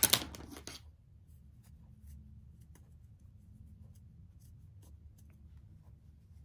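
A short burst of clicks and handling noise in the first second as a thin stick is picked up from a cutting mat, then faint scratching and rubbing of the stick against muslin fabric as it pushes a small sewn piece right side out. A low steady hum runs underneath.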